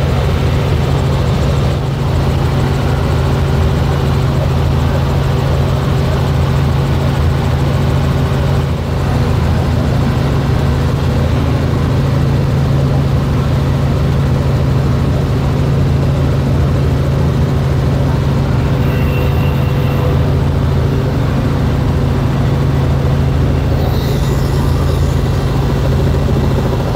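Robinson R44 helicopter in flight, heard aboard: its main rotor and six-cylinder Lycoming piston engine running with a steady, even low hum.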